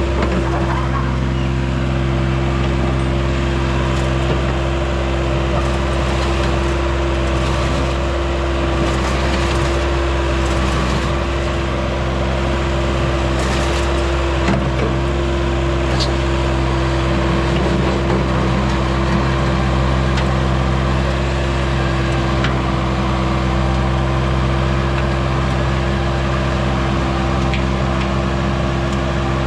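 Vermeer CTX160 compact track loader's diesel engine running steadily at constant speed, with a few faint knocks and scrapes over it.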